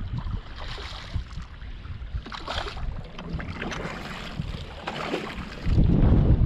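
Wind buffeting the microphone over choppy water, while a hooked speckled trout splashes at the surface beside the boat a couple of times. The wind rumble gets much louder near the end.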